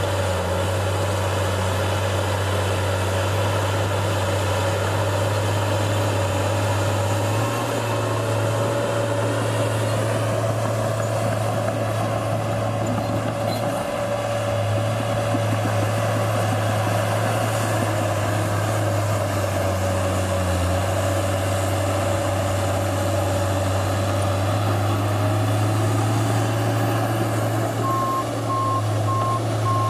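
New Holland D180C crawler dozer's diesel engine running steadily as it works, heard from inside the cab. A reversing alarm beeps in a rapid, even pattern, faintly around eight seconds in and clearly near the end.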